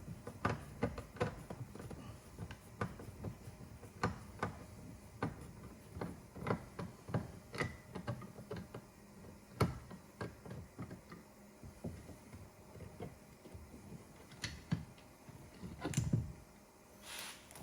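Light, irregular clicks and ticks of a screwdriver working a small screw out of a car's interior door handle, with a louder knock and a short scrape near the end.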